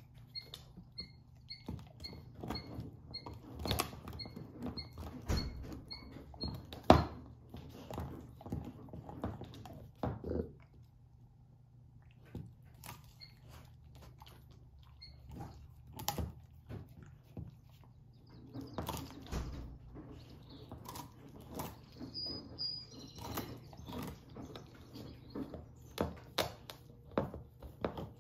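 Great Pyrenees puppy gnawing a huge dino bone: irregular crunches, cracks and scrapes of teeth on bone, with knocks of the bone on a hardwood floor and one loud crack about seven seconds in. The chewing goes quieter for several seconds in the middle, then picks up again.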